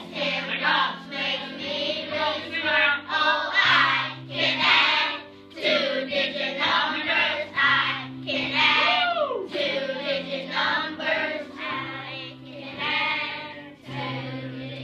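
A class of young children singing together in unison over an instrumental backing track with sustained low chords that change every couple of seconds.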